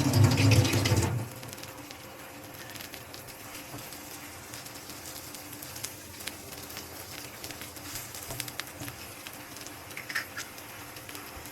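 Kitchen cooking sounds: a loud burst of noise about the first second, then faint scattered clicks and taps over a steady low background.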